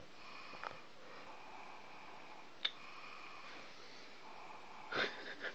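Mostly quiet room with a faint steady hiss and a single sharp click a little past the middle. About five seconds in comes one short, breathy snort from a man snoring in his sleep.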